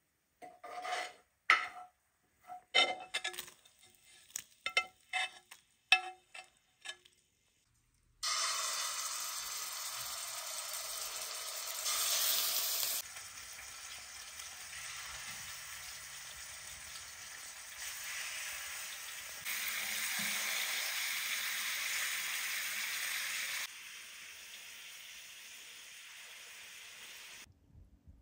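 A metal ladle clinks and scrapes against metal bowls in a series of sharp knocks. About eight seconds in, chicken pieces begin sizzling steadily in a pan on a kerosene heater, the level stepping up and down a few times.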